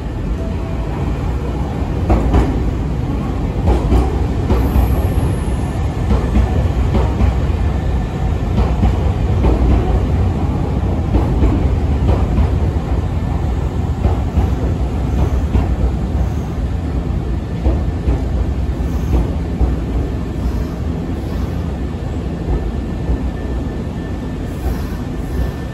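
Nankai 6000 series electric commuter train running past along the platform: a steady heavy rumble of its running gear, with wheels clacking irregularly over rail joints.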